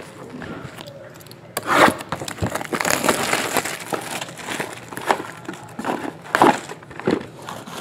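Clear plastic shrink wrap being torn off a trading-card hobby box, crackling and crinkling with many sharp snaps. The tearing begins about a second and a half in, after a few light handling clicks.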